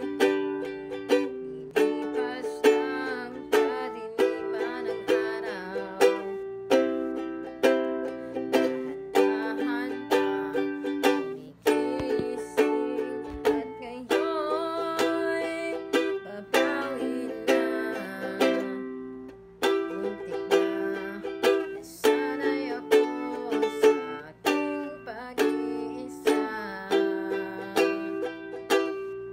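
Ukulele strummed in a steady rhythm, the chords changing about every two seconds.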